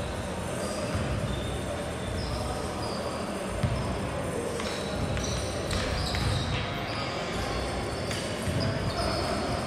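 A basketball bouncing on a hardwood gym floor during play, with many short high squeaks from shoes on the court.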